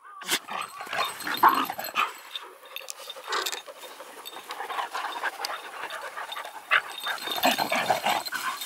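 Dogs play-fighting on grass: a run of short, irregular dog sounds and scuffles with a few sharp clicks, in no steady rhythm.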